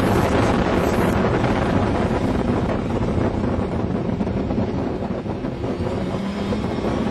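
Engine of an open-cockpit, Seven-style sports car running hard at speed, with heavy wind buffeting the onboard microphone. The sound eases a little about five seconds in as the car slows for a corner.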